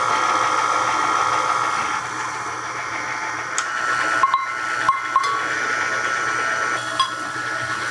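KitchenAid stand mixer running steadily, its paddle creaming softened butter and sugar in a glass bowl, with a steady motor whine. A few light clicks come about four to five seconds in and once more near seven seconds.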